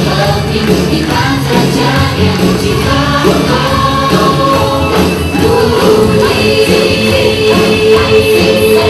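Loud music with singing: the backing track for a cheer routine.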